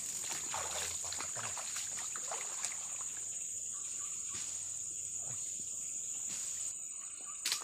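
A steady high-pitched insect drone, with water splashing and sloshing around a person's legs as he wades in the shallows during the first few seconds. A single sharp click near the end.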